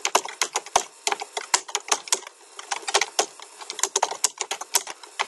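Typing on a computer keyboard: a quick, irregular run of keystroke clicks.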